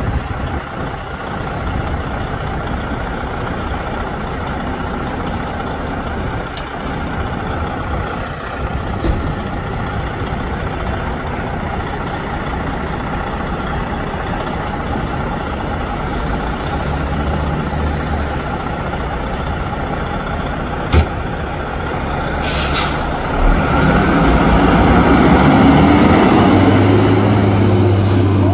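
Fire engine's diesel engine idling steadily, then a short hiss of the air brakes being released about 22 seconds in, and the engine running louder as the truck pulls away. A siren begins to wind up right at the end.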